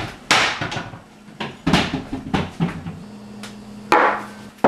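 A series of sharp knocks and clatters from a kitchen cupboard being opened and shut and small glass shot glasses being set down on a wooden tabletop.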